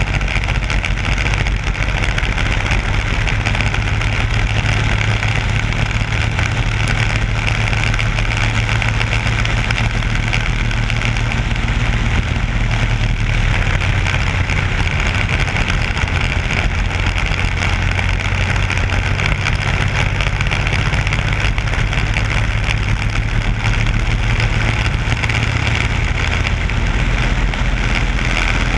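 Onboard sound of a racing kart's single-cylinder four-stroke Briggs & Stratton Animal engine running hard at race speed. It is loud and steady, with its pitch dipping and rising slightly a few times.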